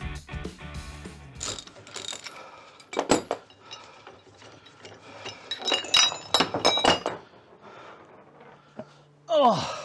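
Ratchet clicking as the screw of a C-clamp ball-joint press is turned with a long pipe extension, under background music that fades out about a second and a half in. This is followed by sharp metal clanks as the steel press frame and its adapter cups are taken off the trailing arm and set down on the workbench, loudest around six to seven seconds in.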